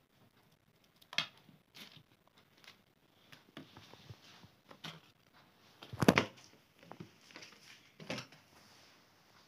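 Intermittent rustles and light knocks of unboxing packaging being handled: plastic sleeves, papers and cardboard box parts moved about, in short separate bursts with the loudest about six seconds in.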